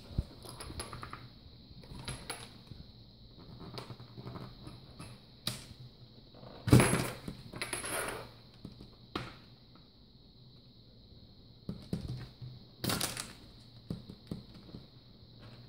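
Plastic display bezel of a Dell E7440 laptop being pried off with a credit card: scattered clicks and short scrapes as its clips pop loose, the loudest snap about seven seconds in.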